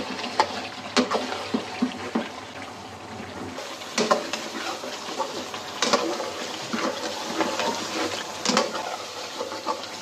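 Metal spatula stirring and scraping mutton in a pan of thick, oily gravy frying over high heat. Sharp clacks of metal on the pan come every second or two over a steady sizzle.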